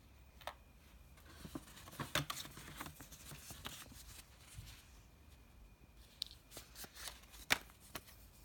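Soft rustling of paper and packaging with scattered light clicks and taps as a small gift box, pouch and paper receipt are handled.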